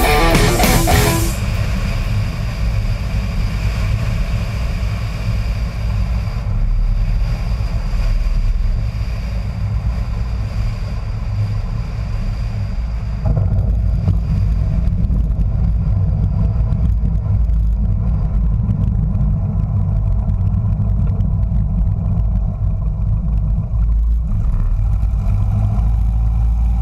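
Light single-engine propeller airplane's piston engine running at low power, heard from outside the airframe as a steady low drone with wind noise. About halfway through it turns louder and fuller as the plane rolls along the runway, then settles into the steady running of taxiing.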